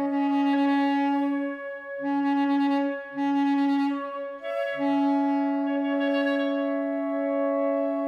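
Woodwind quartet of two flutes, clarinet and bass clarinet playing held notes: a mid-range note is sounded four times in long strokes over steadier higher sustained tones.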